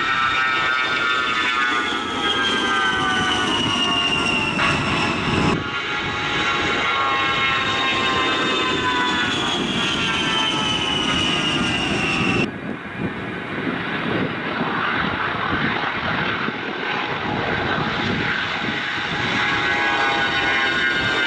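Twin General Electric TF34 turbofans of departing Fairchild A-10 Thunderbolt IIs, a loud jet whine of several stacked tones sliding slowly down in pitch as each jet climbs past and away. The sound jumps abruptly twice, at about five and twelve seconds, as one jet gives way to the next.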